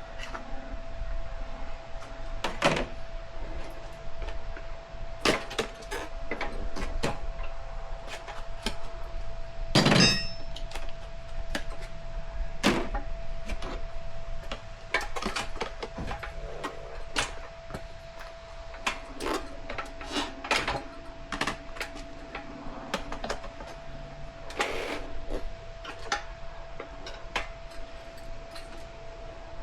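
Tire irons levering a dirt bike tire's bead onto a rim: irregular clicks, knocks and scrapes of the tools against the rim and tire, with a louder knock about ten seconds in. A faint steady hum runs underneath.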